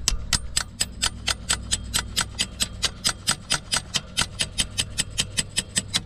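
A ratcheting spanner clicking steadily, about four to five clicks a second, as it works the motorcycle's rear axle nut.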